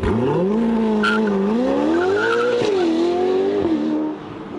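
Ferrari 488 Pista's twin-turbo V8 through a Novitec Inconel exhaust with sport catalysts and the exhaust valves closed, accelerating hard away. The engine note climbs steadily, then drops sharply with an upshift about two-thirds in and another near the end.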